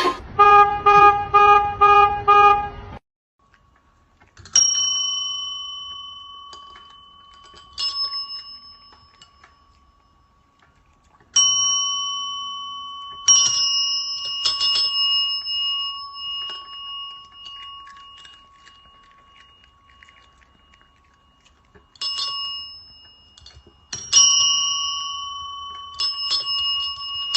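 A small metal bell, struck again and again at uneven intervals. Each ring is clear and fades slowly over several seconds, with a few quick strikes close together near the end. The first three seconds hold a short rhythmic tune.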